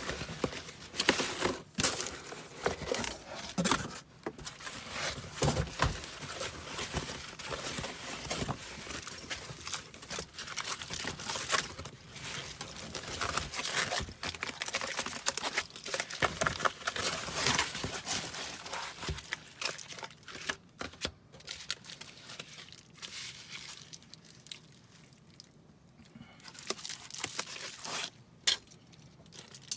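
Packaging being unwrapped by hand: irregular crinkling and rustling of wrapping material, dense at first, thinning out about two thirds of the way through to a quieter stretch, then crinkling again near the end.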